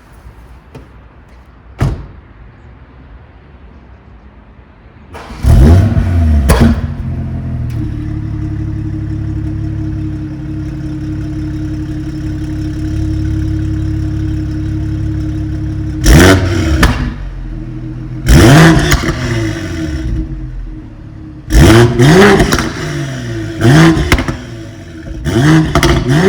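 BMW X4 M40i's turbocharged 3.0-litre inline-six with a Supersprint exhaust, started up with a loud flare of revs about five seconds in, then idling steadily. From about 16 s it is blipped five times, each a quick rise and fall in revs. A single sharp click comes about two seconds in.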